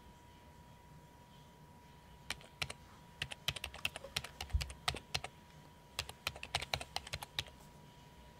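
A French bulldog puppy's claws clicking and tapping on a wooden floor in quick, irregular runs, with one dull thump among them.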